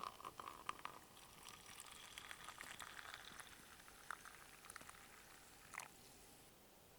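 Faint crackling and hissing of a small cooking fire: many small pops over a steady hiss, with one louder crack about six seconds in.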